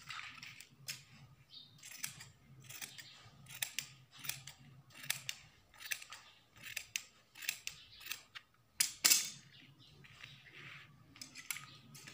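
Large tailor's shears cutting along the marked curve of a printed frock panel in a steady run of snips, roughly two a second, with the loudest snips about nine seconds in.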